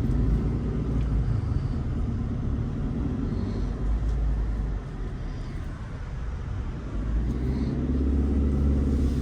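Car engine and road rumble heard from inside the cabin while driving, a steady low drone that grows louder over the last couple of seconds.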